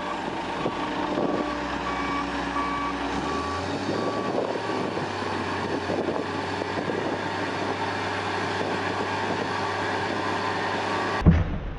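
Back-up alarm of a heavy vehicle beeping about one and a half times a second over its running diesel engine, the beeps fading out about halfway through. Near the end the sound changes abruptly with a loud thump.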